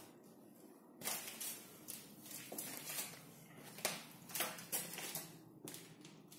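Footsteps on a hard floor, scuffing and crunching over plaster grit, starting about a second in and going on at roughly two steps a second.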